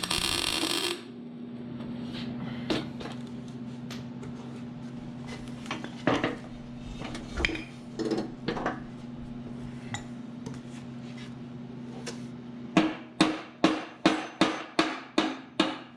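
A welding arc on the steel mower deck sizzles and stops about a second in. After that a steady electrical hum carries on, with scattered metal knocks, and near the end a quick run of about ten hammer strikes on the steel at roughly three a second.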